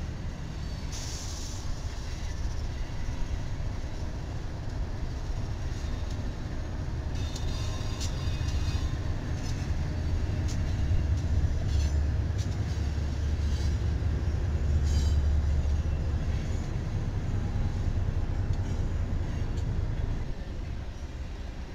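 Diesel-hauled freight train rolling across a steel trestle: a steady low engine and wheel rumble that swells and is loudest about halfway through as the locomotives pass, with scattered sharp wheel clicks and brief high metallic squeals from the rails.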